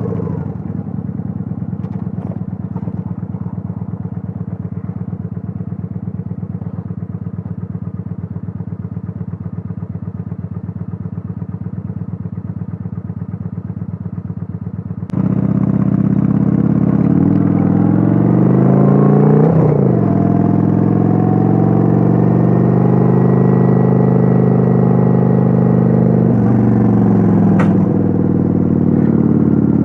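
Kawasaki Vulcan 900's V-twin engine heard from on board while riding, running steadily at first. About halfway the sound jumps abruptly louder, then the engine speed rises and falls, holds steady, and eases off near the end.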